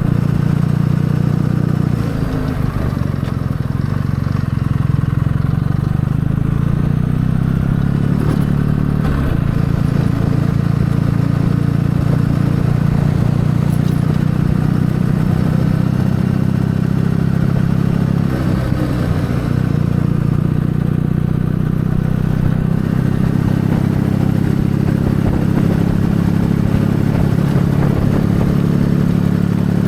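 Kawasaki W650 air-cooled parallel-twin engine running under way, a steady drone whose pitch dips and shifts several times.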